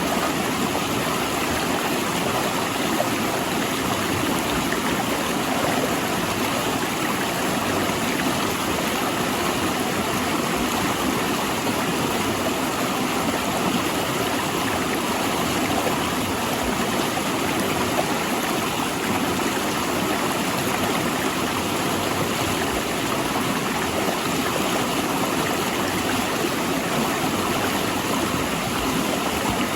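River water rushing steadily over and between large rocks.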